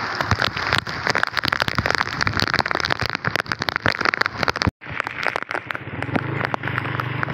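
Heavy rain falling, a dense crackle of drops striking close by. About two-thirds through, the sound cuts out for a moment; when it returns, the rain goes on and a low steady hum joins it.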